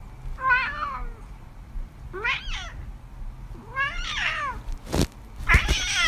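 A domestic cat meowing four times, one call every second or two, the last one the loudest. A sharp click comes just before the last meow.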